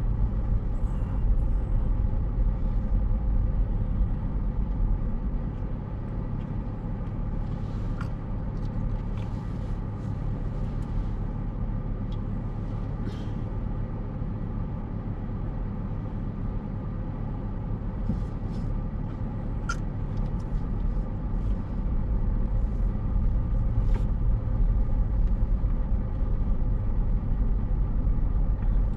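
Steady low rumble of a car's engine and road noise inside the cabin of a car waiting in a slow queue, with a few faint clicks.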